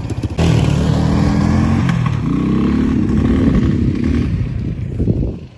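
Kawasaki Bayou 220 ATV's single-cylinder engine revving as the quad pulls away, its pitch rising about two seconds in and falling away near the end. The quad has been bogging out, which the owner puts down to it being almost out of gas.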